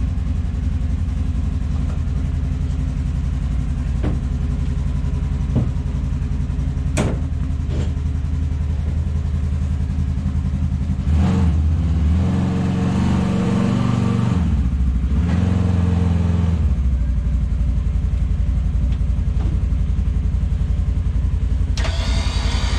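A vehicle engine running steadily at idle, with a few sharp clicks in the first part. About halfway through it picks up, louder and higher for about five seconds as it is driven, then drops back to idle.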